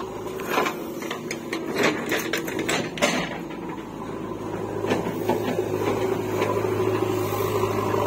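Soil tipped from a backhoe loader's bucket into a steel tractor trolley, clods knocking and clattering in a quick run of hits over the first three seconds. Then a diesel engine runs at a steady idle, growing a little louder toward the end.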